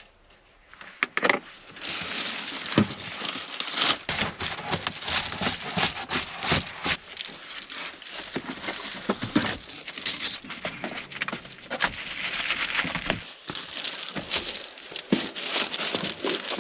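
Crinkling and rustling of foil bubble-insulation window panels and bedding being handled in a minivan's cabin, with many light knocks and taps as the covers are fitted.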